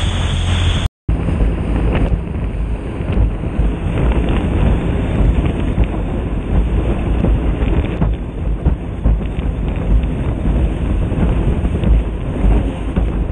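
Wind buffeting the microphone of a jet ski running across choppy open water, with the watercraft's engine and hull spray under it. The sound cuts out completely for a moment about a second in.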